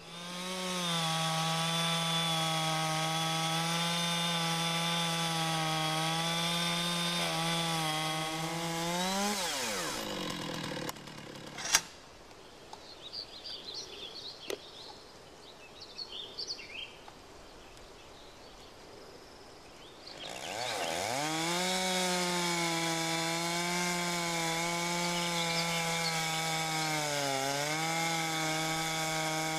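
Chainsaw running at high, steady revs while it cuts along a log in a guide frame. About nine seconds in, the engine dies away, and there is a single sharp knock and some small clicks. From about twenty seconds the saw revs up again and runs steady, with a brief dip near the end.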